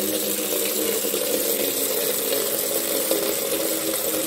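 A stream of water pouring steadily into a large metal pot, splashing on the water already in it as the pot fills.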